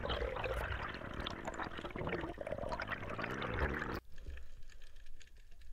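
Underwater water noise picked up by a camera below the surface, a dense rushing and gurgling with scattered ticks. About four seconds in it cuts off abruptly to a much quieter underwater hiss with faint ticks.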